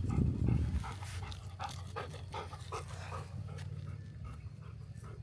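Dog panting close by, quick short breaths about three a second, over a steady low rumble with a loud low thump or gust in the first second.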